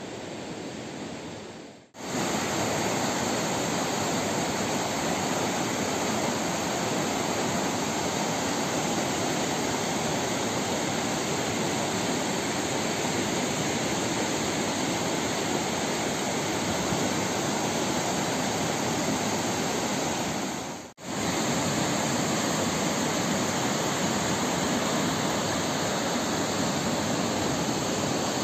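Steady rushing of a swollen, fast-flowing river in flood. The sound cuts out briefly twice, about two seconds in and again late on.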